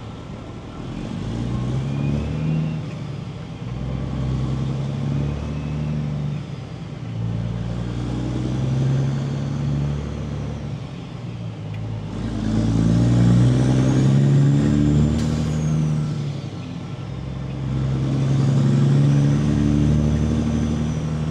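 Peterbilt 389 semi truck's diesel engine heard from inside the cab, pulling away and shifting up through the gears: about five pulls, each ending in a brief dip at a shift. The last two pulls are the loudest, with a high whistle rising and falling over them.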